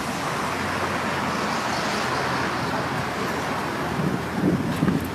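Chevy Silverado pickup being remote-started: the starter cranks with a steady whirring grind, and about four seconds in the engine catches and settles toward idle.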